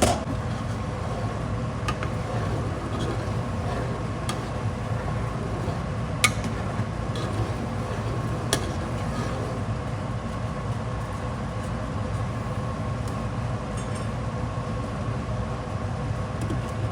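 A spoon or spatula stirring Hamburger Helper in a pan on the stove, giving a few light clicks against the pan a couple of seconds apart, over a steady background hum.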